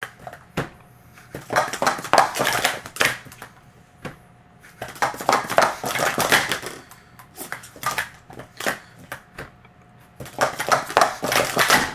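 Plastic sport-stacking cups clattering as they are stacked up into pyramids and brought back down on a mat. The clicks come in four rapid flurries of a second or two each, with short pauses between them.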